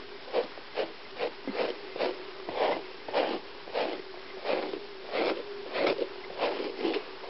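A brush drawn through an Old English Sheepdog's long coat in short, regular strokes, about one every half second or so. A faint steady hum sits underneath.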